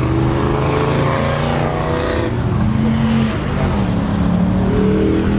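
Plymouth Barracuda's V8 engine revved through its exhaust. The pitch climbs for about two seconds, drops back, then rises again near the end.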